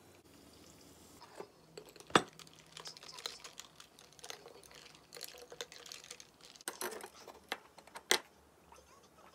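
Water poured from a bottle over ice in a glass, with a faint fizz, then ice cubes clinking against the glass as the drink is stirred. The loudest is one sharp clink about two seconds in, followed by many small clicks.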